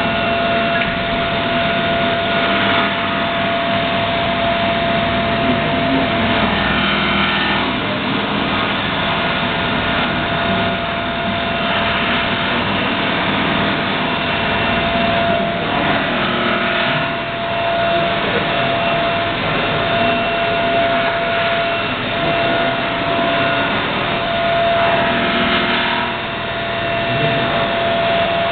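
CNC milling machine running, a steady mechanical noise with a constant whine.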